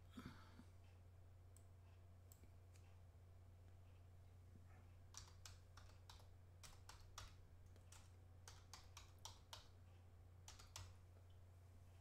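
Faint computer keyboard typing: a quick run of about a dozen keystrokes through the second half, over a low steady electrical hum in near silence.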